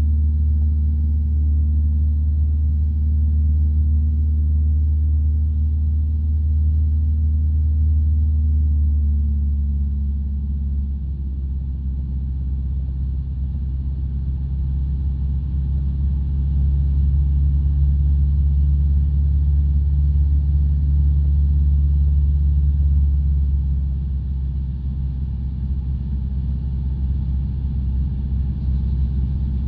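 Light aircraft's piston engine and propeller droning steadily in flight, heard from inside the cockpit. The drone drops slightly about ten seconds in and again near the end, with a small shift in its pitch.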